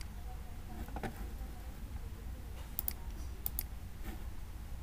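Computer mouse button clicking: a soft knock about a second in, then two quick pairs of sharp clicks near the three- and three-and-a-half-second marks, over a low steady hum.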